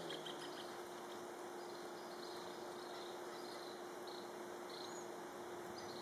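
Faint outdoor ambience: a steady hiss and low hum, with scattered short, high chirps of birds at irregular intervals.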